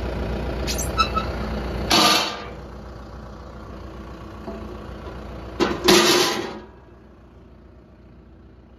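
New Holland TD5040 tractor's diesel engine idling steadily. Two short loud rushes of noise come about two and six seconds in, and after each the engine sounds fainter.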